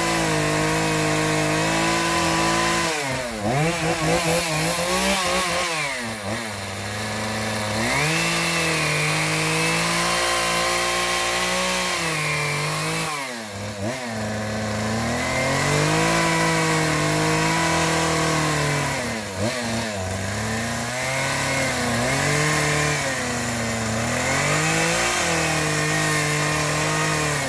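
Chainsaw engine running at high revs, its pitch dropping briefly and climbing back up several times.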